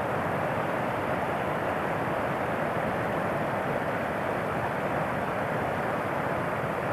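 Steady rushing of a nearby mountain stream, an even unbroken roar of flowing water.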